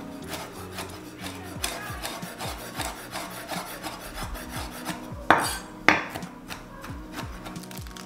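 Chef's knife chopping fresh rosemary on a wooden cutting board: a quick, steady run of knocks and scrapes of the blade on the board, with two louder hits a little past the middle.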